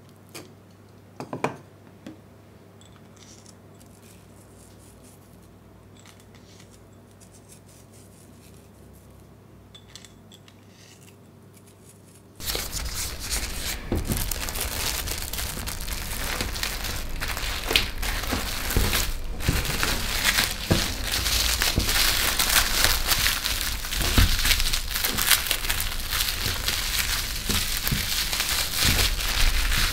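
Plastic cling film crinkling and rustling as it is wrapped tightly around a pork tenderloin in kitchen paper. It starts abruptly about twelve seconds in, after a few soft clicks.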